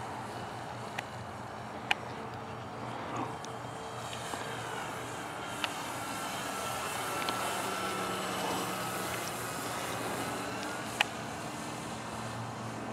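Radio-controlled model airplane flying at a distance, its motor a faint whine that dips and rises in pitch as it passes, over a steady low hum. A few sharp clicks stand out above it, the loudest about two seconds in and near the end.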